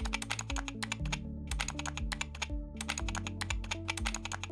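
Rapid keyboard-typing clicks over background music with a steady bass line. The clicks pause briefly about a second in and again around two and a half seconds in.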